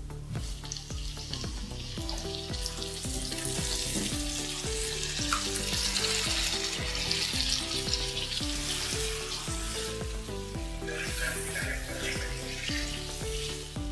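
Raw chicken pieces sizzling as they go into hot ghee with fried onions in a kadai, the sizzle building a couple of seconds in and then stirred with a wooden spatula near the end. Light background music with a steady rhythm runs underneath.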